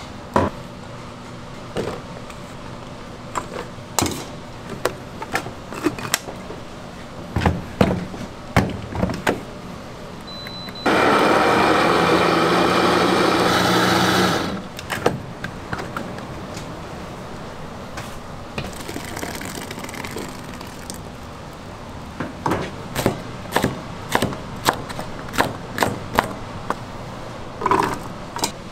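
Knocks and clatter of steel bowls and a blender jar being handled. About eleven seconds in, an electric countertop blender motor runs loudly and steadily for about three seconds, grinding, then cuts off abruptly, followed by more scattered clicks and knocks.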